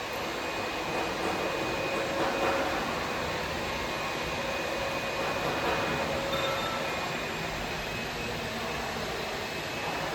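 Steady noise of workshop machinery: an even hiss with faint, steady whining tones and no distinct strokes.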